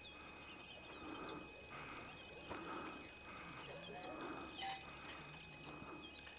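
Faint outdoor background of distant voices, with a few short high chirps scattered through it.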